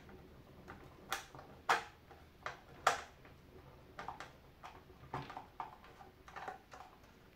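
Irregular light clicks and taps of small parts and plastic being handled inside the black plastic housing of a De'Longhi Special.T tea machine as the small Phillips screws holding its circuit board are taken out. About ten sharp clicks, two of them louder than the rest.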